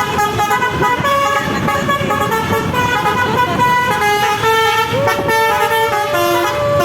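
Bus 'telolet' horn, a multi-tone musical air horn, playing a quick tune of several notes at once that change every fraction of a second. It ends on one long held note.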